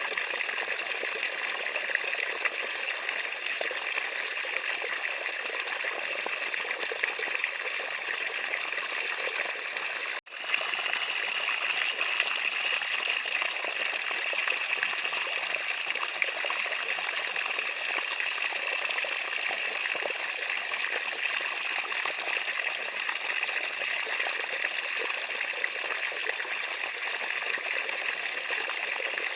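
Running water trickling steadily. It cuts out for an instant about ten seconds in, then resumes.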